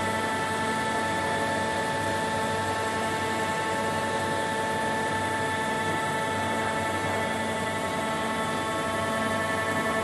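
Mazak AJV35-60 vertical machining centre running, a steady high whine of several even tones over a machinery hum and hiss, with no change in pitch or level.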